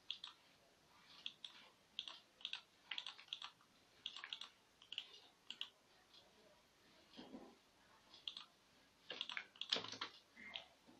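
Quiet computer mouse clicks, irregular single and double clicks, with a louder knock near the end.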